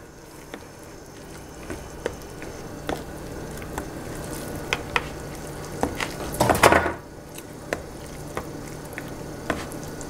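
A metal fork stirring cooked instant noodles in a plastic Sistema microwave noodle bowl, with scattered light clicks and scrapes of the fork against the bowl. A brief louder noise comes about six and a half seconds in.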